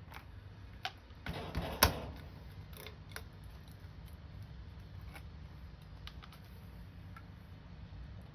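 Scattered light clicks and knocks of oil containers being handled while fresh oil is measured out, with a short rustle and a sharp click about two seconds in.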